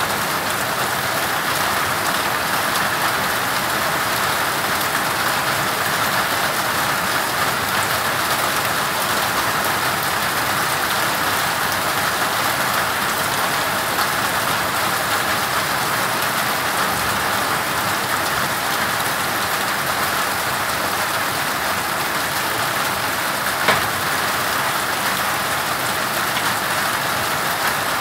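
Steady hard rain mixed with small hail, pattering without a break, with one sharp tap near the end.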